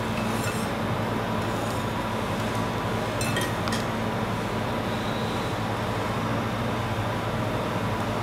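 Steady low hum over a constant background noise, with a few light clicks about three seconds in as Oreo cookies are handled on the hard work surface.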